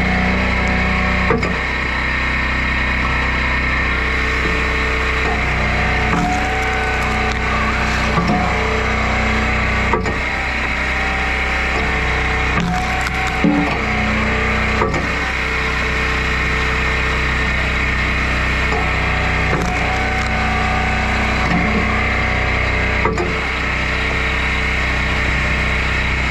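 Engine-driven hydraulic log splitter running steadily, with firewood cracking and splitting apart several times as logs are forced through the wedge.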